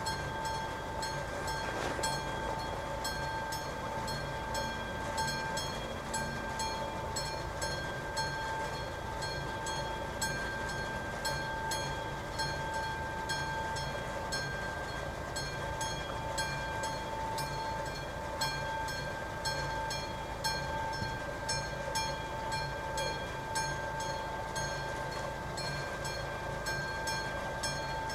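Level-crossing warning bell of AŽD 71 signals ringing steadily with evenly repeated strokes, warning that a train is approaching.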